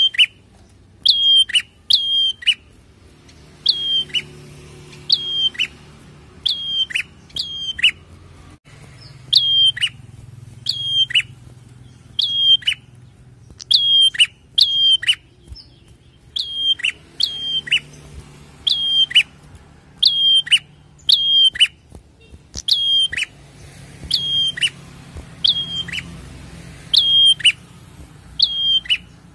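A caged prenjak, a small long-tailed warbler, singing: sharp, down-slurred chip notes, mostly in quick pairs or threes, repeated about every second or two.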